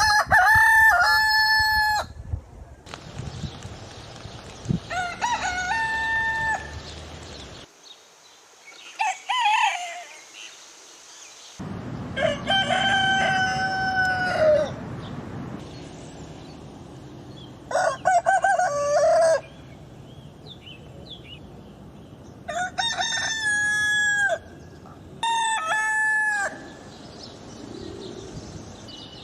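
Roosters crowing: about seven separate cock-a-doodle-doo crows in turn, some loud and close, others fainter, each lasting one to three seconds.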